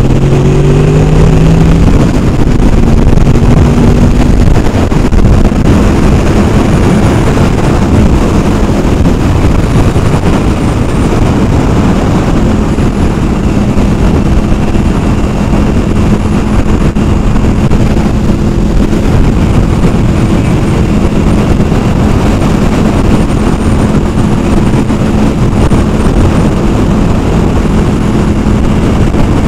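Honda VFR800 Interceptor's V4 engine climbing in pitch as the bike accelerates over the first couple of seconds, then holding a steady note at cruise. Heavy wind and road rush on the rider's microphone lies over it.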